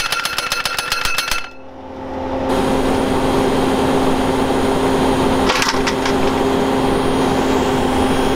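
Skid steer engine running steadily with a low hum. It is preceded by a rapid pulsing sound that cuts off about a second and a half in, and there is a brief clatter about five and a half seconds in.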